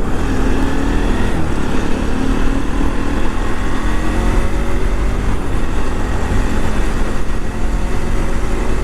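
Motorcycle engine running as the bike rides along, under a steady low rumble of wind on the microphone.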